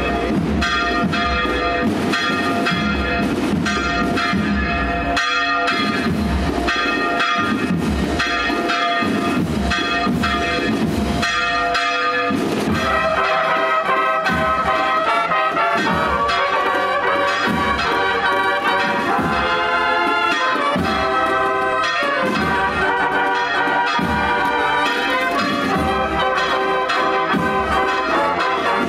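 Church bells pealing, struck in quick repeated strokes over a steady ring. About twelve seconds in, brass band music joins the bells and plays a melody under them.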